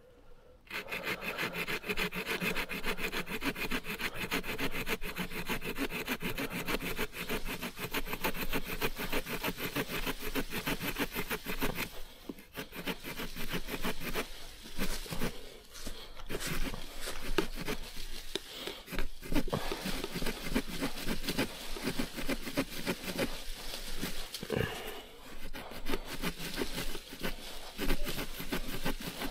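The small folding saw blade of a Mikov Stovka 100-NH-7A pocket knife sawing back and forth through a green branch in quick, steady strokes. It starts about a second in, with a few short pauses.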